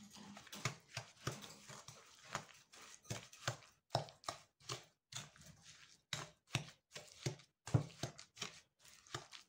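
Wooden spatula knocking and scraping against a glass mixing bowl while stirring egg into a crumbly butter-and-sugar mixture: faint, irregular taps about two or three a second.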